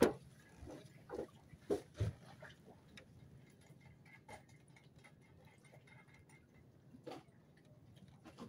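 Scattered clicks and knocks of hands fitting a propeller and its locking nut onto a Yamaha 40 hp outboard motor, with the loudest knocks at the very start, a cluster around one to two seconds in, and another near seven seconds.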